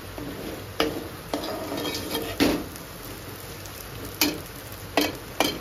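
A spoon clinking and scraping against a cooking pan, about six sharp knocks, over a light steady sizzle of fenugreek leaves frying in oil as chopped tomatoes are added and stirred in.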